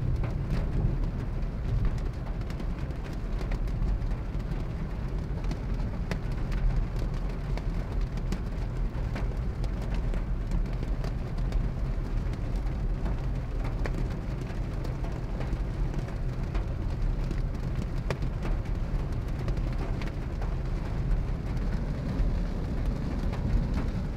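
Torrential rain beating on a moving car's roof and windscreen, heard from inside the cabin as a steady wash with many small sharp drop impacts, over the low rumble of the engine and tyres on the wet road.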